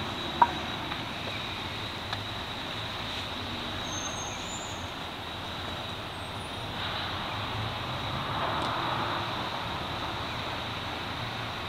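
Steady outdoor urban background noise, like distant road traffic, with a thin high-pitched whine running under it. One sharp click about half a second in, and the noise swells slightly near the end.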